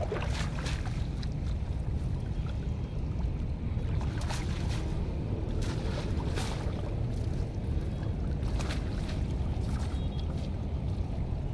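Water sloshing and splashing as a fishing net is dragged and lifted in shallow muddy water. There are a few sharp splashes over a steady low rumble.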